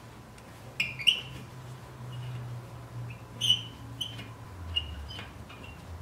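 Short metallic clinks and chirps from a 6 mm hex key working the small rotor retaining screw out of a BMW E36 wheel hub, about seven in all, some ringing briefly, over a steady low hum.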